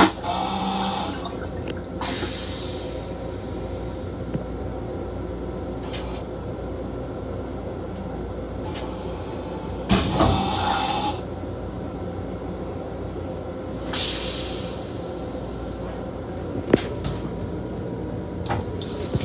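LIRR M7 railcar toilet flushing twice: each time a sharp clunk and a brief hum, then a hissing rinse a couple of seconds later. The first flush comes at the start and the second about ten seconds in, over the steady rumble of the moving train.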